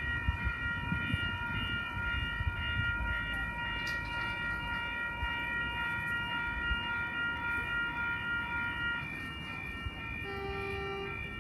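An 8-car Oscar electric train pulling into the platform: a low rumble of the cars and a steady high whine that fades out about nine seconds in, with a short lower tone about ten seconds in.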